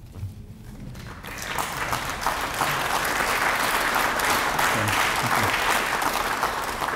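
Audience applauding. The clapping builds over the first couple of seconds and then holds steady.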